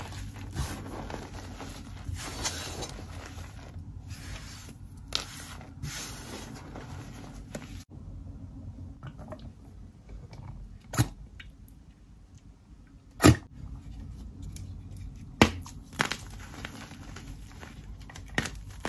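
Fingers kneading and crumbling a powdery white block, a steady crunchy rustle. It stops suddenly about eight seconds in, and what follows is quieter, with a few sharp cracks and clicks as hand soap is squeezed onto a chalk block and the block is pressed and crushed in the hand; the loudest crack comes about thirteen seconds in.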